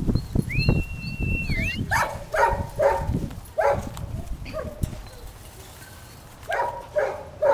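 Puppies yapping in short, high barks, several in a row about half a second apart, pausing and then starting again near the end. Before the yapping there is scuffling and thumping, and one held high whistling note that dips at its end.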